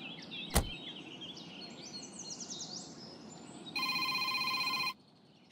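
Birds chirping, with a single thump about half a second in. Near the end a telephone starts ringing: one trilling ring of about a second, then a brief pause before the next ring begins.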